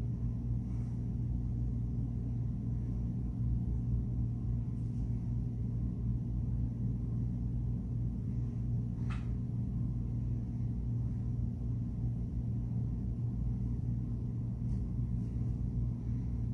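Steady low hum in the room background, with one faint short tick about nine seconds in.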